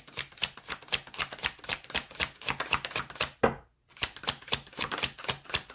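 A deck of tarot cards being shuffled by hand: a fast run of crisp card clicks, broken by a brief pause about three and a half seconds in.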